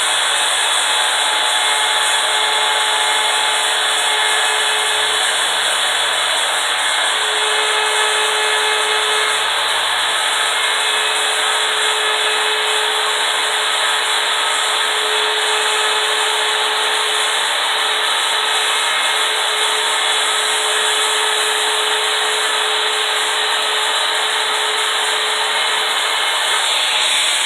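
Handheld router fitted with a small CNC bit in a collet reducer, running steadily while it carves letters into a wooden sign; the motor's pitch shifts slightly as the bit takes the wood.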